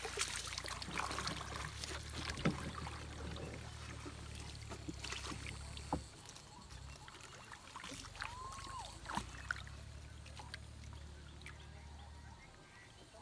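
A plastic paddle worked through water thick with floating water hyacinth beside a wooden boat: watery swishes and splashes with scattered clicks and knocks. A short whistle-like tone rises and falls about two-thirds of the way through.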